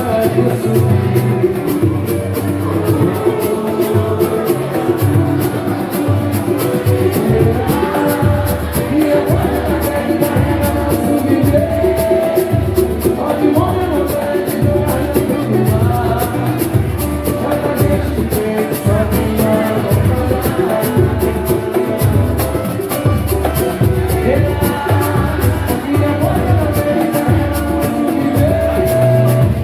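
Samba-pagode band playing live, with a steady low drum beat under a melody and voices singing.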